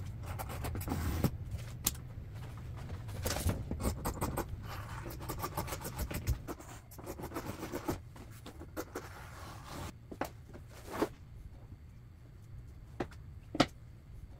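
Scissors cutting through grained vinyl upholstery material, two layers laid face to face, with an uneven scraping crunch of the blades and the vinyl dragging on the table. The cutting stops about ten seconds in, and a few sharp clicks and taps follow as the scissors and pieces are handled.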